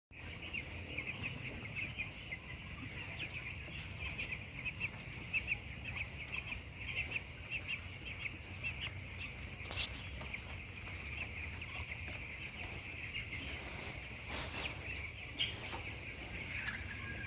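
A flock of 15-day-old broiler chicks peeping constantly, many short high calls overlapping into one steady chorus over a low hum, with a single sharp click about ten seconds in.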